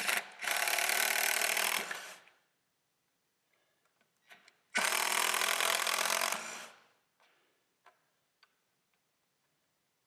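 Cordless drill driving Phillips-head screws into a wooden plate, in two runs of about two seconds each, with a few small clicks between them.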